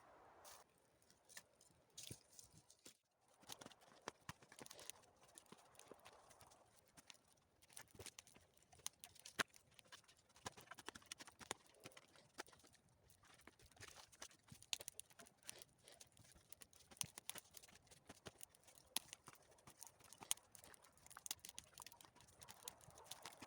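Small campfire of dry branches crackling, with many quick irregular snaps and pops, a few sharper than the rest.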